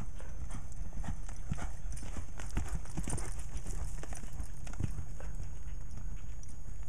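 Hooves of a chestnut cutting mare loping on arena dirt under a rider: a steady run of soft, uneven hoofbeats.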